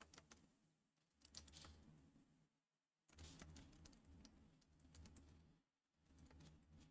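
Faint typing on a computer keyboard: several short runs of keystrokes with brief pauses between them, as a terminal command is entered.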